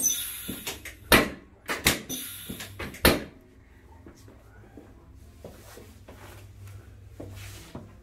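Sharp clacks of a chiropractic drop table as thrusts on the right hip adjust it: about five hard clacks in the first three seconds, then quiet shuffling.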